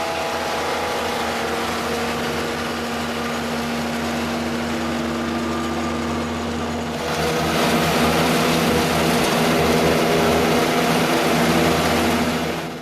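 A 100 HP, 12-inch woodchipper running steadily with a constant engine hum; about seven seconds in it gets louder and noisier across the whole range, which stays up until near the end.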